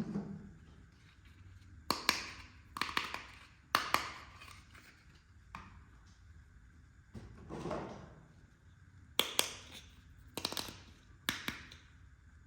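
Small hard plastic toy-kitchen pieces being handled, giving a string of sharp clicks and taps at uneven intervals, with a short rubbing rustle about halfway through.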